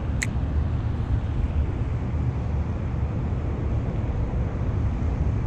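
Wind buffeting the microphone: a steady low rumble, with one brief sharp tick about a quarter second in.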